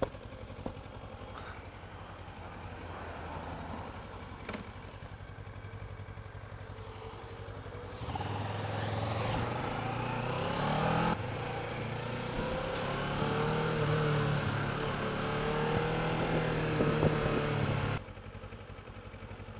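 Kawasaki ER-6f motorcycle's parallel-twin engine ticking over at a low steady idle with a few light clicks. About eight seconds in it gets louder as the bike pulls away and accelerates, its pitch rising and falling through the gears over wind noise. It drops abruptly back to a quiet idle near the end.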